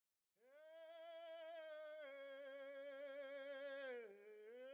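A voice humming long held notes with vibrato, stepping slightly lower about two seconds in, then sliding down and back up just after four seconds.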